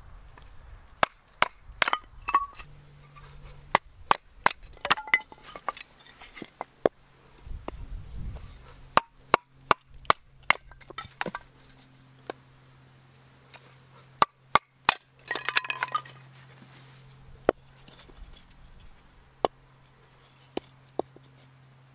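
Large chopper knife chopping and splitting a stick of kindling on a wooden chopping block: sharp wooden knocks at irregular intervals, with a quick run of strikes about fifteen seconds in.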